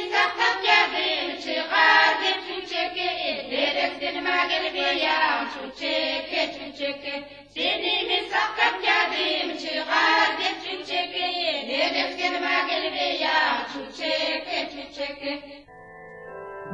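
Several voices singing a folk song in phrases of a few seconds, in a Siberian Turkic language. Near the end the singing stops and faint sustained ringing tones begin.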